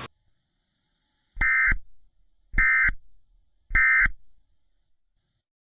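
Emergency Alert System end-of-message signal: three short bursts of S.A.M.E. digital data tones, a little over a second apart. A faint high steady whine sits underneath and stops near the end.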